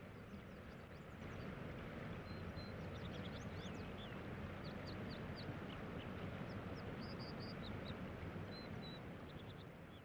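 Fast mountain stream rushing steadily, with an American dipper singing over it from about two seconds in: a run of short, high whistled notes that slide up and down, some repeated in quick twos and threes.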